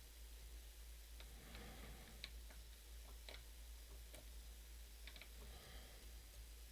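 Faint, scattered clicks of a lock pick moving against the pins inside a challenge lock held under tension, about one click a second.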